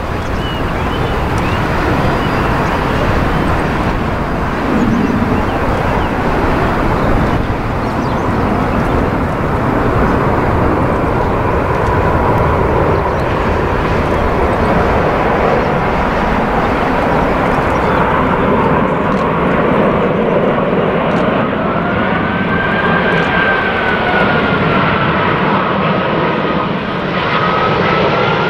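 Airbus A380-841's four Rolls-Royce Trent 970 turbofans on final approach: a loud, steady jet rumble. In the second half a whining tone rises and falls in pitch above it.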